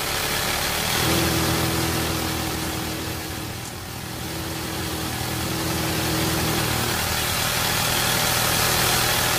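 Machinery running in a welding workshop: a steady low mechanical hum under a loud, even hiss, with a steady higher tone over it for most of the first six seconds.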